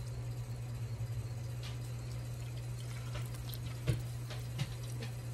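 Milk pouring from a plastic gallon jug into a measuring cup and then into a stainless steel pot of melting butter, over a steady low hum, with two light knocks about four seconds in.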